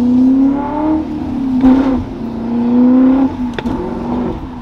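BMW E39 M5's straight-piped, muffler-deleted V8 exhaust heard from inside the cabin while the car accelerates. The note climbs and drops a few times, with a louder surge a couple of seconds in.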